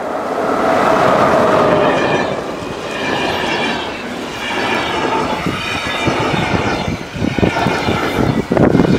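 Electric locomotive hauling passenger coaches passes close at speed through deep snow, with a whine that dips in pitch as it goes by. The coaches' wheels follow, with sharp knocks growing more frequent toward the end: clickety-clack over rail joints.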